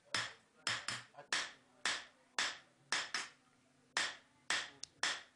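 Coppersmith's hammer striking copperware, sharp blows at about two a second in an uneven rhythm.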